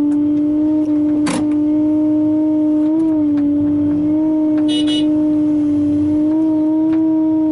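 Excavator running with a steady droning tone that holds level throughout. A sharp click comes about a second in, and a short high rattle near the five-second mark.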